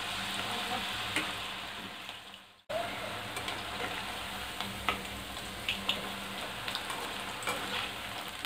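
Batter-coated cauliflower florets sizzling as they deep-fry in hot oil in a kadai, with a few light clicks as a slotted spoon stirs them. The sound cuts out briefly about two and a half seconds in.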